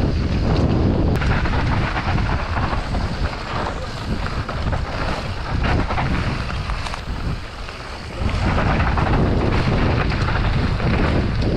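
Mountain bike descending a rough dirt trail at speed: wind buffeting the helmet or chest camera's microphone as a heavy low rumble, with the tyres on the dirt and the bike rattling over the bumps. It eases off briefly about seven seconds in, then comes back as loud.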